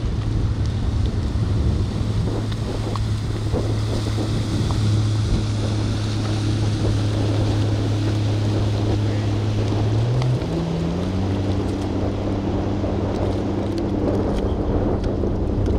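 A boat motor humming steadily under wind and water noise, its pitch stepping up and shifting about ten seconds in.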